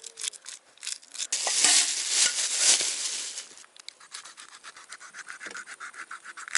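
Knife scraping the scales off a small crucian carp: rapid scratchy strokes, loudest and densest about two seconds in.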